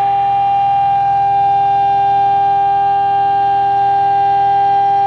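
BMG1325 CNC router's spindle motor running with a steady high-pitched whine as its bit cuts through red acrylic sheet.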